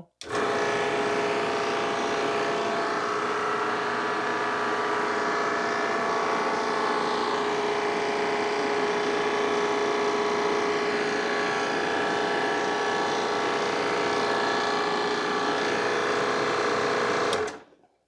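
Inficon refrigerant recovery machine running steadily with a motor hum, purging its hoses of R-134a after recovering the refrigerant from the car's A/C system. It cuts off suddenly near the end.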